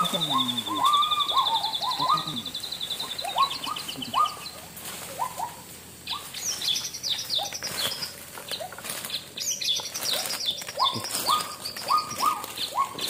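Rainforest birds calling: a run of short, repeated up-slurred whistled notes, with a high pulsing trill over the first few seconds and bursts of high chirps in the second half.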